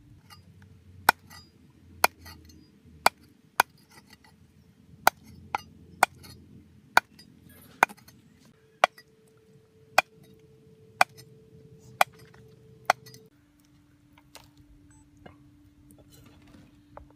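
Large knife chopping a snake into pieces on a round wooden chopping block: sharp, single chops about once a second, stopping about thirteen seconds in.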